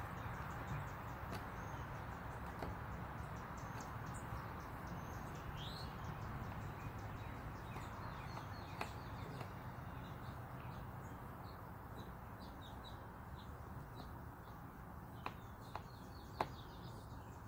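Small birds chirping repeatedly over a steady background hiss, with a few sharp clicks near the end.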